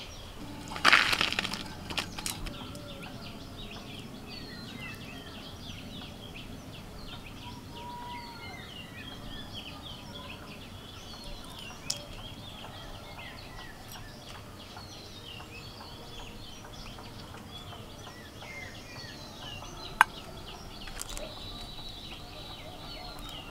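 Small birds chirp and twitter without pause. A brief rustle comes about a second in, and a few sharp clicks follow, the loudest near the end.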